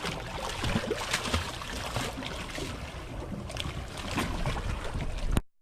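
Wind on the microphone and water noise aboard a fishing boat: a steady rushing with a few faint knocks, cut off abruptly near the end.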